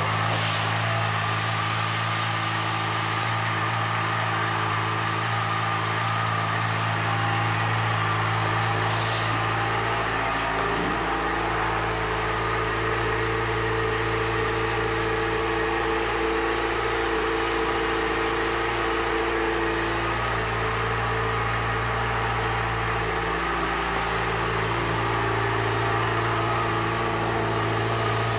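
Yamaha FZ6R's 600 cc inline-four engine idling steadily.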